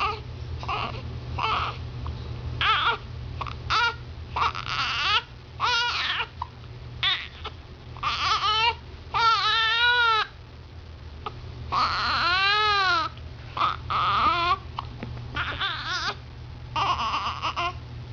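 Baby crying and fussing in short bouts, with two longer wailing cries about halfway through.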